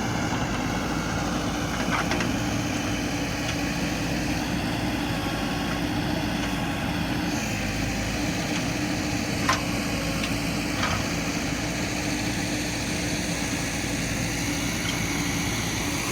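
Diesel engine of a JCB construction machine running steadily at an even speed, with a few short metallic knocks, the loudest about halfway through.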